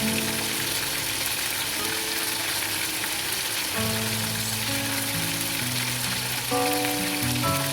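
Food frying in hot oil in a pan, a steady sizzling hiss, with background music playing.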